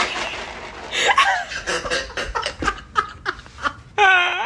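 A person laughing hard in short, breathy bursts, with a higher, drawn-out note near the end.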